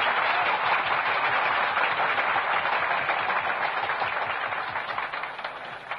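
A large crowd applauding, dense and steady, then dying away over the last second or so.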